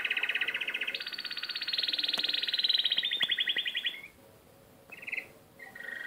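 Mechanical flapping bird toy giving a rapid, buzzing trill that steps between a few pitches. It breaks off about four seconds in, gives a short burst a second later, and starts again at a lower pitch just before the end.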